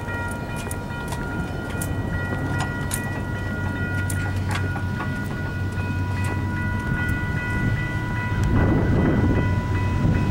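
Malfunctioning railroad crossing warning bell sounding as a continuous, steady ring, almost like a siren, instead of separate strokes. The uploader suspects a lightning strike damaged it. A low rumble grows louder near the end.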